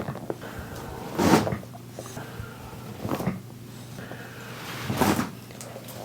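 Chiropractic rib adjustment: three hand thrusts on the back, about two seconds apart, each giving a short cracking thud as the rib and spinal joints release.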